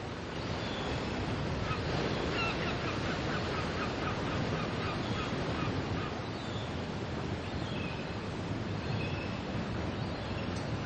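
Steady wash of ocean surf with birds calling over it in short, quick notes, most of them in a run a couple of seconds in and more scattered ones later.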